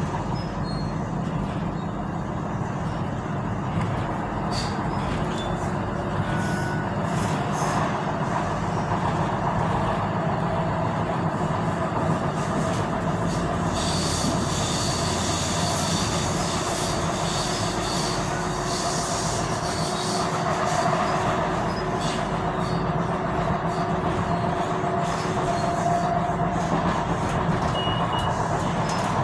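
Tyne and Wear Metro electric train running along the line, heard from inside the car: a steady rumble of wheels on rail. For several seconds midway a thin high squeal joins it.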